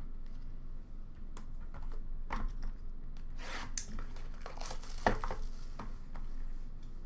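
Trading cards and a cardboard card box being handled: irregular rustling and sliding scrapes, with a sharp knock about five seconds in.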